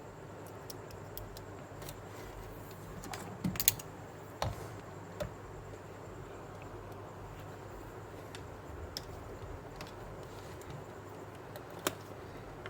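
Scattered light clicks and taps, a few louder ones bunched together about three and a half seconds in and one near the end, over a steady low hum.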